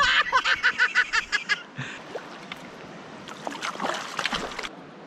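A hooked trout thrashing and splashing at the surface of shallow river water as it is brought to the net: a quick flurry of splashes over the first second and a half, then a second burst about three and a half seconds in.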